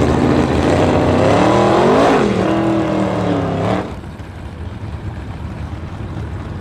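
Drag-race car engine at full throttle, its pitch climbing to a peak about two seconds in, dropping briefly and climbing again. The loud engine sound cuts off sharply a little before four seconds, leaving a lower, steady background of crowd and track noise.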